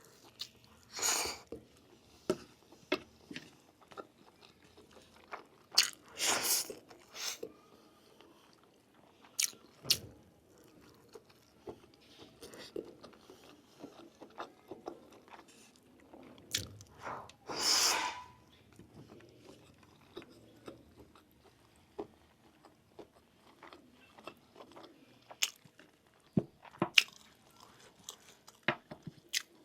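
Close-miked chewing and biting: a person eating, with many small mouth clicks and crunches and a few louder noisy bursts about a second in, around six seconds in and near eighteen seconds.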